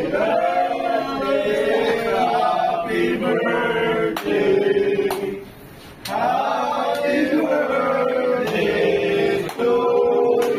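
A group of men singing together in unison, with a short pause about five seconds in.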